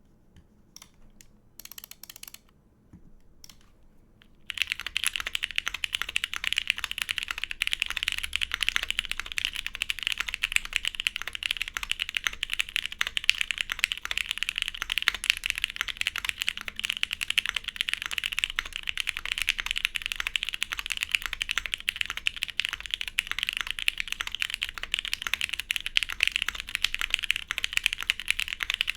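Typing on a plateless, gasket-mounted Leviatán mechanical keyboard with broken-in, lubed and filmed Cherry MX Black linear switches and DCX ABS keycaps. A few scattered keystrokes at the start give way, about four and a half seconds in, to a dense, continuous run of fast typing.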